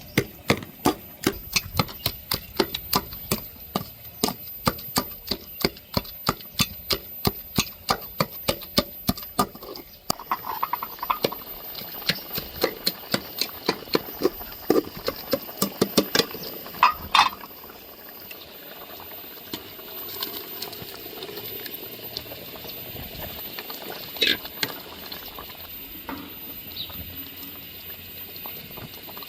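A knife chopping on a cutting board at a fast, even pace, about four strokes a second, for roughly the first ten seconds. It slows to sparser knocks, then gives way to a quieter stretch with only a few clinks near the end.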